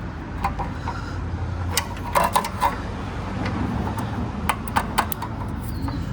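Irregular light metallic clicks and clinks of a socket ratchet being fitted and worked on a 12mm bolt, over a steady low hum.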